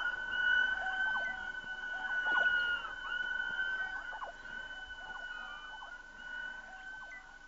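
Experimental violin and electronics: a sustained high tone, with a fainter one an octave above, under repeated short swooping glides that dip and rise in pitch, the whole slowly getting quieter.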